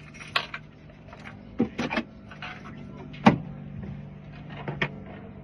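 Scattered sharp clicks and taps of small hard objects being handled, the loudest a little after three seconds in, over a steady low hum.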